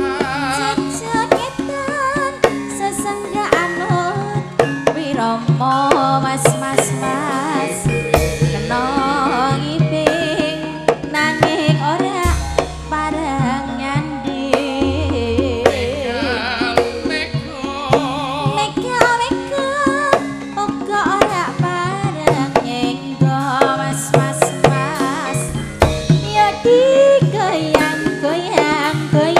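Live Javanese gamelan music played steadily. Hand-drum (kendang) strokes lead it, long low gong tones sound beneath, and a wavering sung melody runs over the top.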